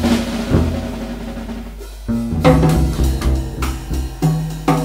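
Jazz drum solo section on a Tama drum kit, with sticks on snare, toms and cymbals and bass drum hits, over a walking line plucked on a double bass. The playing eases off just before two seconds in, then comes back with loud strikes.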